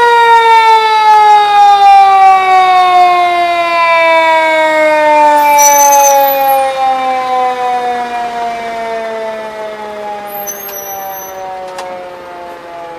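Fire engine siren winding down: one long wail that falls slowly in pitch and fades away.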